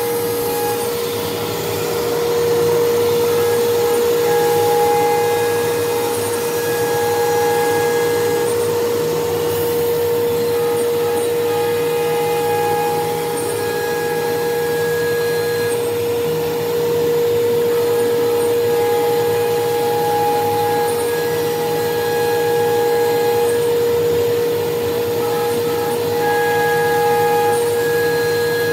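Holztek RT1325V CNC wood router running: the spindle holds a steady whine while it routes grooves in a board. Fainter higher tones come and go every few seconds as the head moves along the job.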